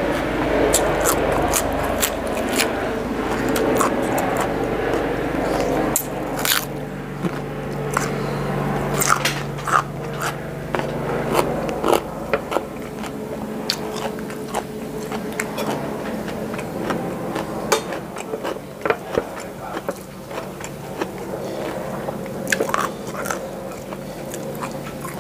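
Close-up crunching and chewing of raw fresh vegetables, with many short crisp bites scattered through, thickest in the middle.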